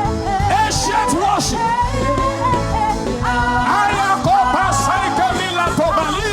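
Worship chanting: voices sing wordless, sliding syllables over a steady musical accompaniment.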